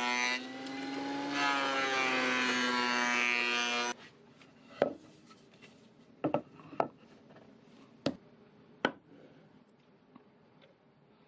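A power woodworking tool running with a loud, steady whine that dips in pitch as it bites into the wood, cutting off abruptly about four seconds in. After that come several sharp wooden knocks and taps.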